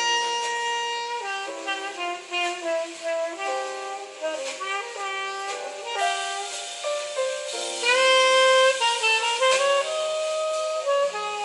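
Background instrumental music: a melody of held notes that change from one to the next.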